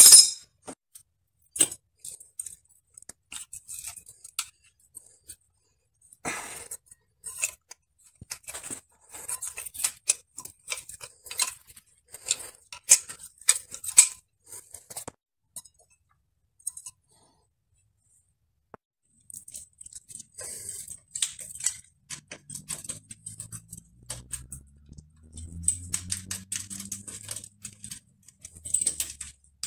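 Intermittent metal clicks and clinks of hand tools and bicycle parts being handled as a 2002 Specialized Hardrock mountain bike's crank, pedal and front derailleur are taken apart. The clicking comes in clusters with a pause in the middle, and a faint low hum runs for a few seconds near the end.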